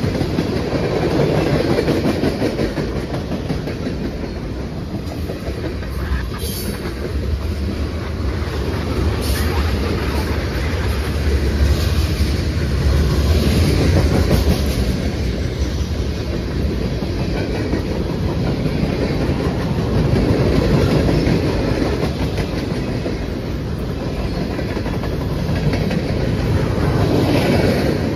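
Freight train cars rolling past close by: a steady rumble of steel wheels on rail with clickety-clack over the rail joints and a few sharp clacks.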